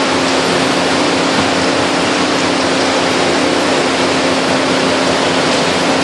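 International Baler TR12-T100 high-pressure two-ram baler running while baling cardboard: a steady machine hum under a constant loud rushing noise, with no distinct knocks.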